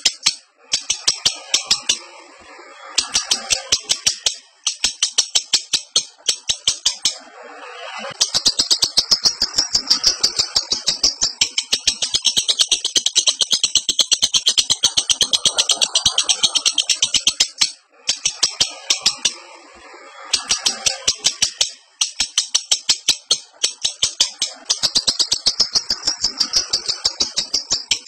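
Lovebird in breeding condition (birahi) giving its rapid chattering 'ngekek' call: long strings of sharp, shrill notes at about ten a second, in bursts broken by short pauses, with softer chatter beneath.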